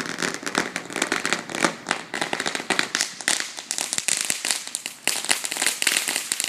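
Ground firework crackling: a dense, irregular run of rapid small pops that keeps going without a break.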